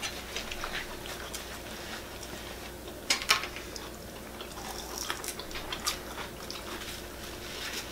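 People chewing and biting food, with scattered small clicks and taps; the sharpest clicks come about three seconds in.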